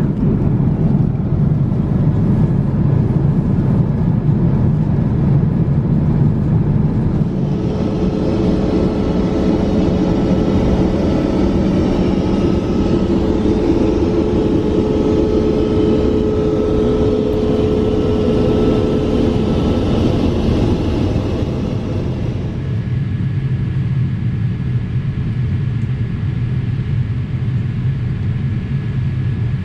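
Boeing 787-8 cabin noise in flight: a steady low rumble of engines and airflow. In the middle the sound changes to a brighter hiss with a steady hum tone, then drops back to the low rumble.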